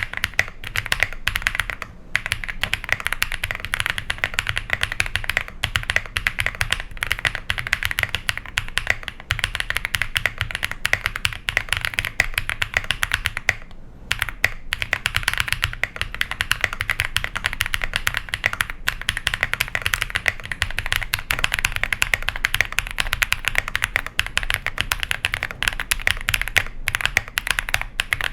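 Continuous fast typing on an iris65 custom mechanical keyboard with a PC plate, BSUN switches and GMK keycaps: a dense, even stream of key clacks, broken by two short pauses, one about two seconds in and one about halfway.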